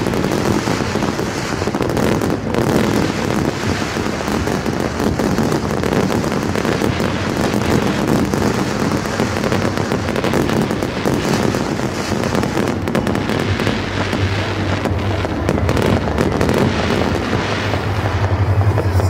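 Aerial fireworks going off one after another: a dense, continuous run of bangs and crackles.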